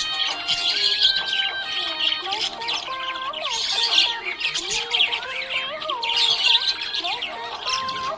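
Budgerigars chirping and squawking busily, a constant flock chatter, with a melody of music playing underneath.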